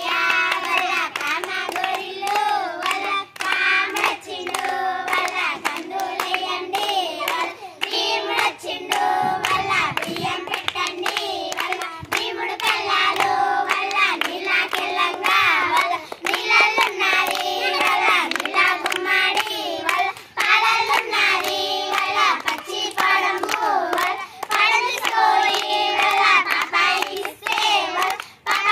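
A group of young girls singing a traditional Telugu kamudu game song together, clapping their hands along with it.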